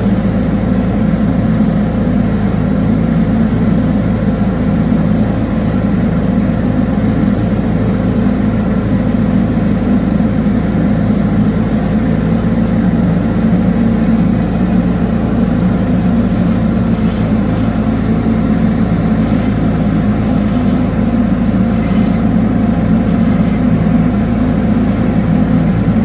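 Engine of a high-pressure drain-jetting washer running steadily at a constant speed while it drives the jet through the drain pipe.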